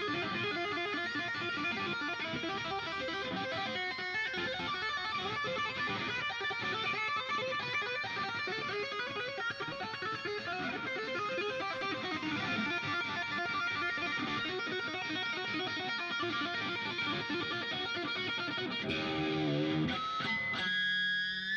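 Electric guitar played live: busy lead playing with quick runs of notes, and near the end a few held notes that waver in pitch.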